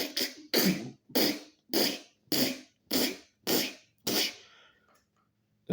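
A person making repeated breathy mouth sound effects imitating digging, about eight short bursts in an even rhythm, stopping about four and a half seconds in.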